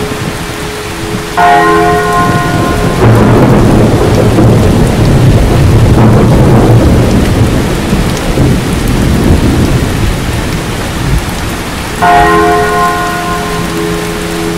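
Thunder rolling for several seconds over steady rain. Bell-like ringing tones sound briefly twice, once before the thunder and again near the end.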